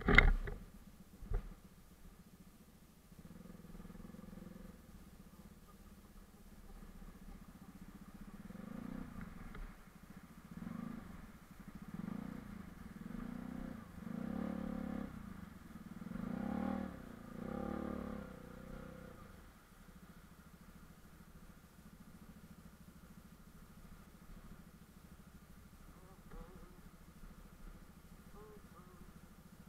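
Bajaj Pulsar RS200's single-cylinder engine running at low speed on a rough track, with a sharp knock right at the start and a smaller one a second later. Through the middle the revs rise and fall in repeated surges as the bike wades a stream crossing, then it settles back to a steady low run.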